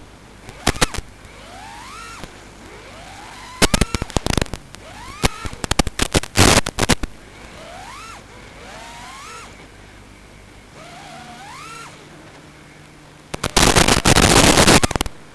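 Small motors revving up again and again in rising whines, each about a second long, with loud crackling bursts in between and a longer stretch of harsh crackle near the end.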